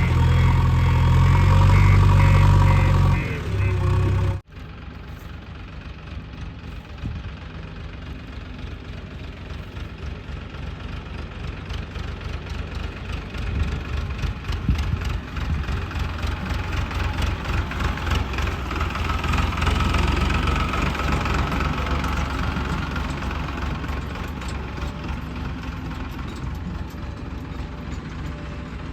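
Heavy diesel engine of earth-moving machinery running with a rapid, even knocking beat, working up louder toward the middle and then easing off. About four seconds in, a louder passage with steady tones cuts off abruptly.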